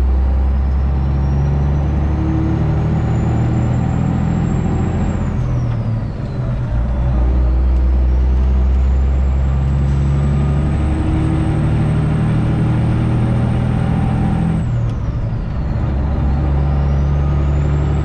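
Freightliner Classic XL semi truck's 12.7-litre Detroit Diesel engine pulling under load, with a high turbo whistle climbing slowly in pitch. Twice, about six seconds in and again near fifteen seconds, the engine and whistle drop away briefly and build back up at upshifts of its 13-speed transmission.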